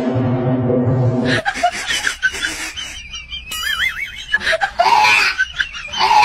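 People laughing, with a held pitched voice-like sound at the start and a warbling high-pitched tone in the middle.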